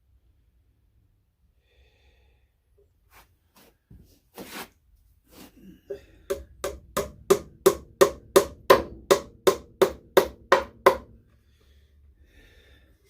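Hammer tapping a Miller stepped wooden dowel into a drilled hole in a wooden jig: a few light taps, then a steady run of about fifteen sharp blows, about three a second, that stop about two seconds before the end.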